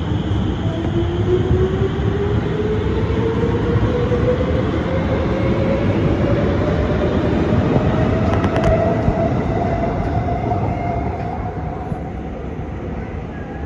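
Alstom Movia R151 electric metro train pulling away from the platform. Its traction motors give a whine that rises steadily in pitch for about nine seconds over the rumble of wheels on rail. The sound then slowly fades as the train leaves.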